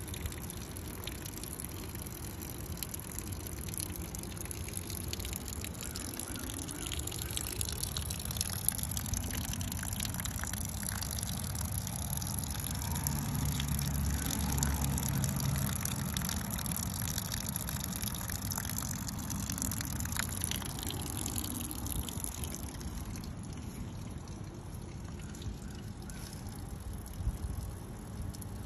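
Thin stream of water trickling out of a hole drilled in the side of a self-watering planter, draining standing water left in it by heavy rain.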